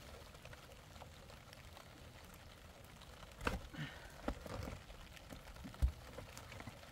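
Faint background hiss, then a few scattered knocks and clicks in the second half, the sharpest one near the end.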